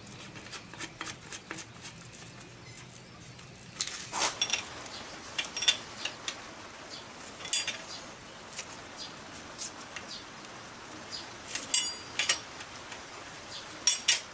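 Irregular metal-on-metal clinks and clicks of a hand tool on the cylinder head of a Honda CB750 Four engine as parts are tightened lightly by hand after a tappet check. There are a few faint ticks at first, then louder clusters of sharp ringing clinks.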